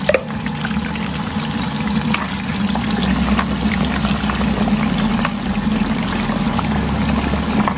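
Sliced potatoes, jalapeños and an onion frying in hot oil in a disco pan: a steady hiss of sizzling with scattered small crackles, over a steady low hum.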